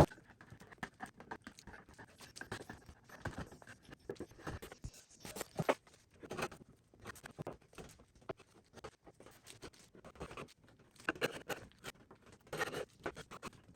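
Wood chisel scraping glue off a wooden panel in many short, irregular strokes, a few of them sharper and louder.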